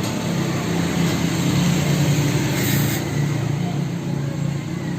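A motor vehicle's engine running steadily, a low hum that swells a little in the middle.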